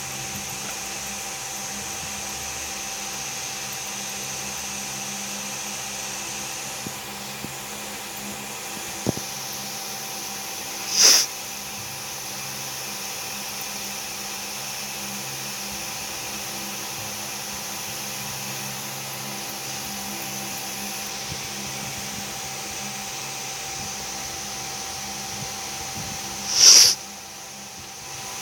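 Steady mechanical whir and hiss of a small running motor, broken twice by a brief, louder hiss: once about a third of the way in and once near the end.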